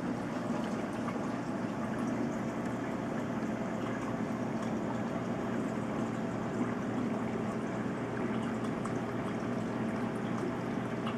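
Reef aquarium's water circulation: steady running and bubbling water over a low, even pump hum.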